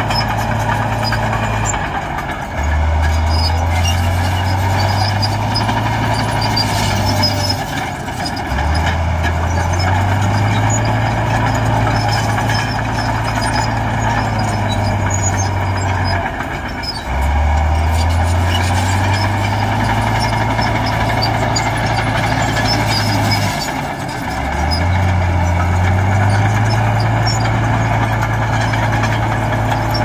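Heavy diesel earthmoving machine working hard: the engine's pitch dips and then climbs back up four times, holding the higher pitch for several seconds each time, over constant mechanical noise.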